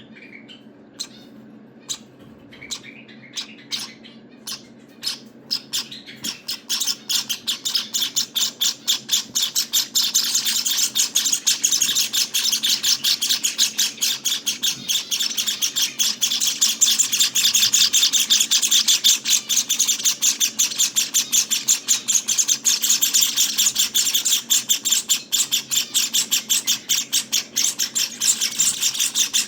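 Java sparrow nestlings chirping: a few separate chirps at first, then from about six seconds in a rapid, unbroken stream of high chirps.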